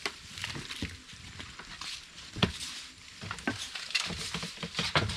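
Rustling and scattered knocks and thumps of a mesh bag of freshwater prawns being picked up and carried across a wooden boat's plank deck. The loudest knock comes about two and a half seconds in, and more follow near the end.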